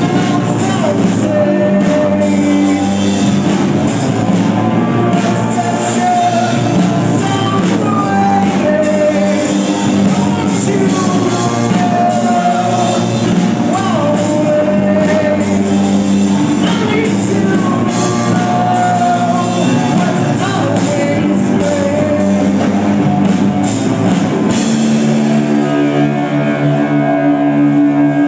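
Live rock band playing loud: electric guitars, bass and drum kit. About three seconds before the end the drums drop out and held guitar chords ring on as the song ends.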